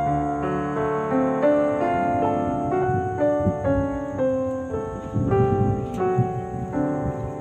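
Background piano music: a slow melody of single held notes changing about every half second, with a faint low rustle under it in the middle and one sharp click about six seconds in.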